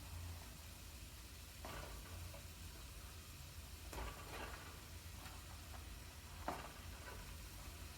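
Faint sizzling of chicken and rice frying in a pan over lowered heat, with a few short scrapes and knocks of a utensil, the sharpest about six and a half seconds in.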